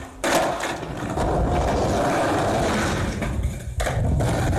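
Skateboard wheels rolling over concrete paving as the rider pushes off and rides toward a small concrete ramp, with a sharp clack a little under four seconds in.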